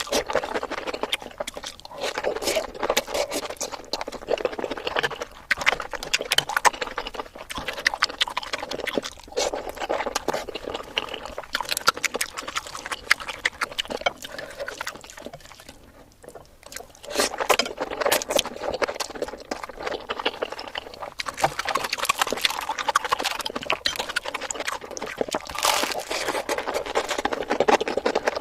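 Close-miked eating sounds played back sped up: a rapid, busy run of chewing, smacking and slurping, with a short lull about halfway through.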